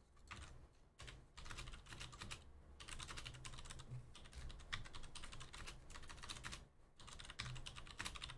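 Typing on a computer keyboard: a fast, faint run of keystrokes with a couple of brief pauses.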